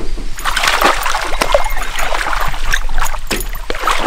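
Water splashing and sloshing close by, with many irregular sharp clicks and knocks mixed in.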